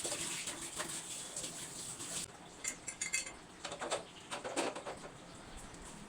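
Dishes and kitchen utensils clinking as they are handled, under a steady hiss that cuts off suddenly about two seconds in. After that come a few separate clinks and knocks.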